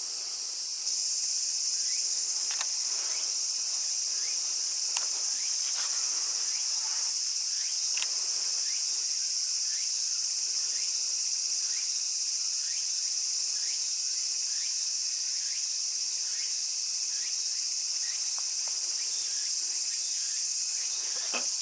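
Steady, high-pitched chorus of summer insects, growing louder about a second in, with a few faint clicks.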